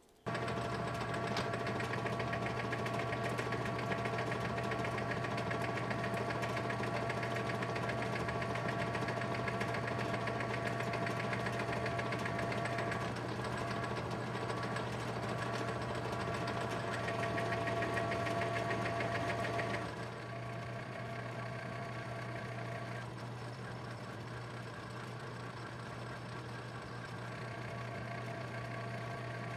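Metal lathe running under power with its motor and gear train humming and whining steadily while single-point cutting a 9 TPI stub thread on an O1 tool-steel rod. About two-thirds of the way through, the sound drops a little in level and loses some of its brightness.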